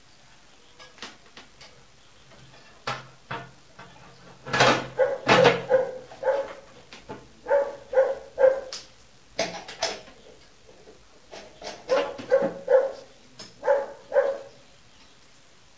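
A dog barking in short, sharp barks, about a dozen in clusters starting a few seconds in.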